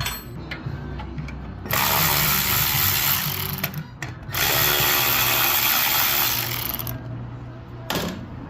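A cordless power tool runs twice, each time for about two and a half seconds with a short pause between, backing out the 10 mm bolts of the heat shield.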